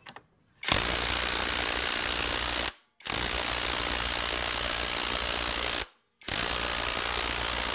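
Power impact wrench hammering on the camshaft sprocket bolt of a Yamaha Mio Sporty cylinder head, in three bursts of two to three seconds with short pauses between. The bolt is seized too tight to come loose.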